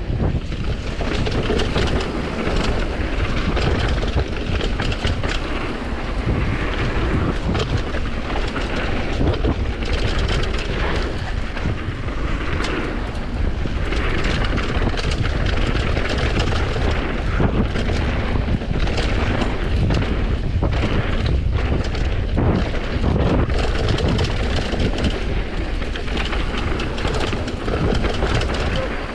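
Commencal Supreme DH downhill mountain bike descending a dirt trail at speed: wind rushing over the action camera's microphone, tyres rolling over dirt, and many short rattles and knocks from the bike over bumps.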